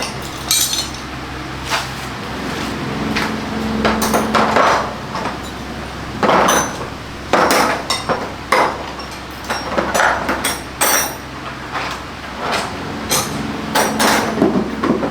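Irregular metallic knocks and clinks of hand tools and metal parts being handled during work on a motor scooter, a dozen or so strikes spaced unevenly.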